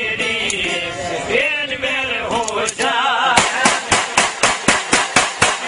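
Men singing a folk song to strummed long-necked lutes. About three and a half seconds in, this gives way to handguns fired rapidly into the air, several shots a second.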